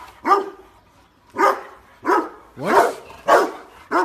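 Pit bull barking, about six separate barks at uneven intervals.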